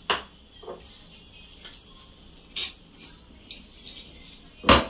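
Metal spoon and kitchen containers clinking and knocking in a handful of short, sharp taps, the loudest a knock near the end.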